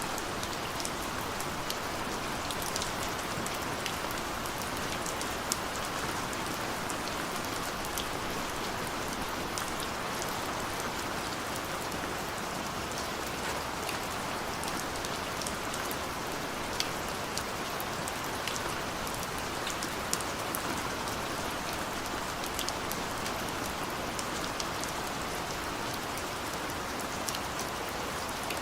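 Steady rain falling on a window, a constant hiss with many small scattered drop ticks.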